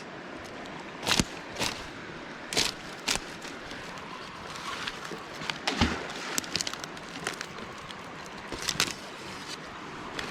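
Footsteps crunching and snapping on sticks and flood debris, a few sharp irregular steps, over a steady rushing background.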